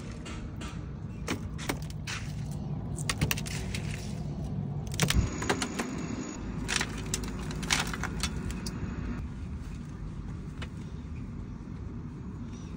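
Scattered clinks, knocks and rattles of a metal tray holding crushed ice as live eels are handled and lifted out of it, the loudest knock about five seconds in and fewer after about nine seconds. A steady low rumble underneath.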